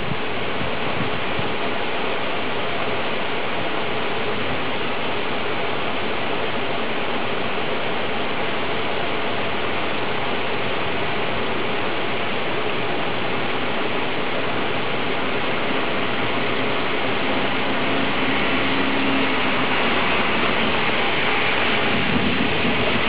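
Heavy rain falling steadily in a dense, crackling patter during a thunderstorm. A low rumble builds near the end.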